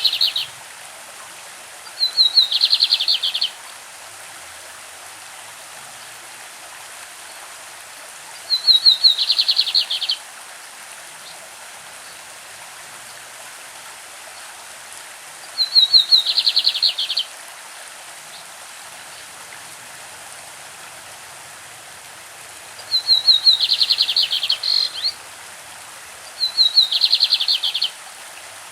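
Lined seedeater (bigodinho) singing, repeating a short phrase every few seconds: a quick run of separate clear notes leading into a fast trill, each phrase about a second and a half long. A stream runs steadily underneath.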